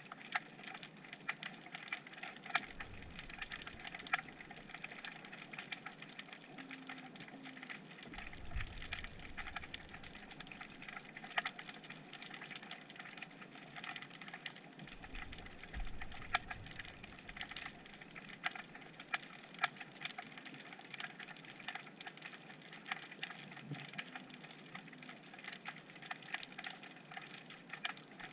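Underwater crackle of many irregular sharp clicks, typical of snapping shrimp, heard through a submerged action camera's housing. A few short low rumbles come about three, nine and sixteen seconds in.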